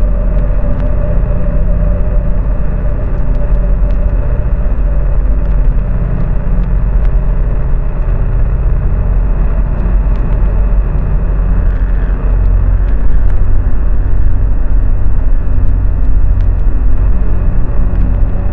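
Loud, steady low rumble of a car driving, with a held hum and scattered faint crackles over it.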